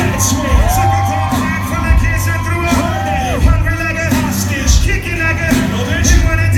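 Live hip-hop music played loud through a club PA: a steady drum beat over heavy bass, with a lead line that slides up and down in pitch, and some voices singing or shouting over it.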